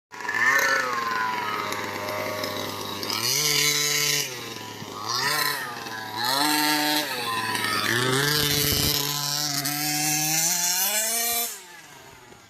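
Small two-stroke engine of an RC buggy revving up and down with repeated throttle bursts, its pitch climbing and falling again several times, then dropping away about eleven and a half seconds in.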